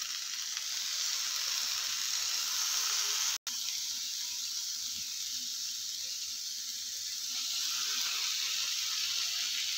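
Sweet corn kernels sizzling in butter in a hot nonstick pan, a steady hiss, as lemon juice is squeezed over them. The sound cuts out for an instant about three and a half seconds in.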